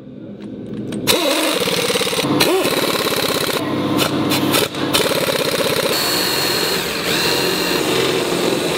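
Impact wrench running hard in a shop, driving bolts into a suspension lift bracket. It starts about a second in, with a fast rattle and a pitch that rises and falls.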